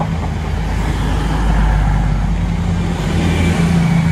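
East Midlands Railway Intercity diesel train passing close by at speed: a steady low engine hum under the continuous rumble and rush of the wheels and coaches.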